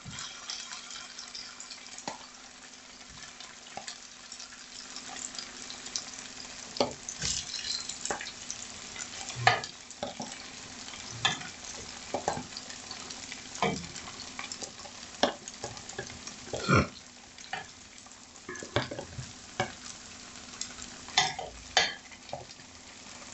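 Shrimp sizzling in hot olive oil in a frying pan, with irregular short clicks and scrapes against the pan throughout. A faint steady low hum runs underneath.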